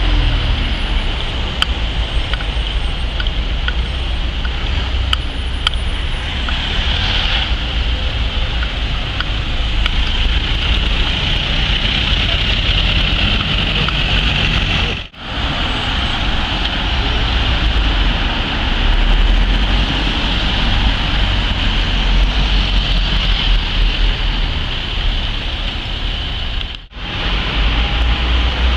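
Emergency vehicles, ambulances, a pickup and medical cars, driving past one after another on a street: a steady rumble of engines and tyres with a high hiss over it. The sound drops out briefly twice.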